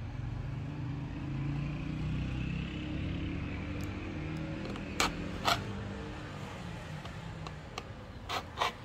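A metal fork punching holes in the lid of a cup noodle container: sharp pops, two about five seconds in and two more near the end. Under them is a low background rumble that swells and then fades.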